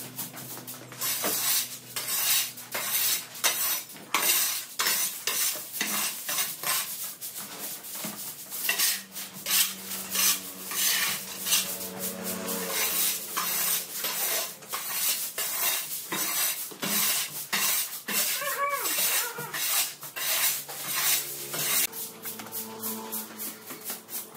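Irregular series of scraping, clattering strokes, about two or three a second, from hand work clearing debris.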